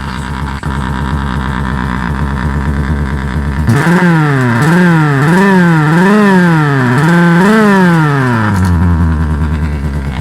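Suzuki Raider underbone motorcycle idling with a 'big bike' speaker tapped off its rectifier, giving a steady tone that follows engine speed. About four seconds in, the throttle is blipped about six times, the tone rising and falling with each rev, then it settles back to idle.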